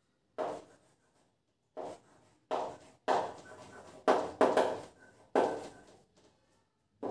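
Writing on a board: a run of about eight short knocks and scrapes, each starting sharply and dying away quickly, bunched closest together in the middle.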